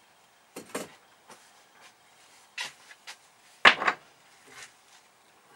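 A handful of separate knocks and clatters of things being handled and set down on a workbench, the loudest about two-thirds of the way through.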